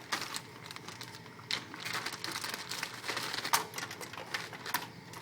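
Irregular clicking and rattling of small computer parts being handled and fitted, with a sharper click about three and a half seconds in.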